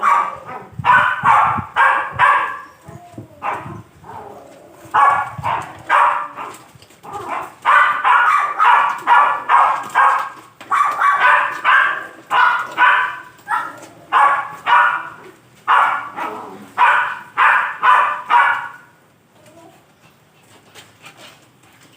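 A dog barking in quick, high yelps, several a second in runs, until it stops about nineteen seconds in.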